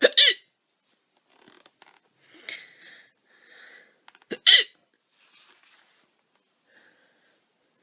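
A woman with loud hiccups, two sharp hiccups about four and a half seconds apart, with faint softer sounds between them.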